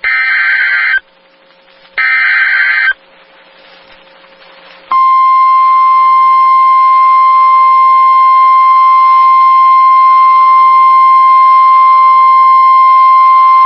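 NOAA Weather Radio EAS alert: two one-second bursts of screeching SAME digital header tones a second apart, then, about five seconds in, the steady 1050 Hz weather radio warning alarm tone, held for about nine seconds. Together they are the attention signal for a severe thunderstorm warning.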